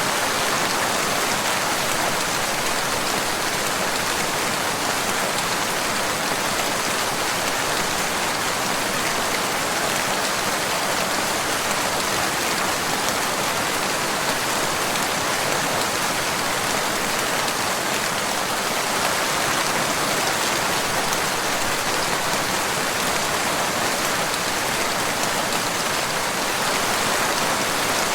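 Steady rain falling, an even hiss of many drops that keeps on without pause.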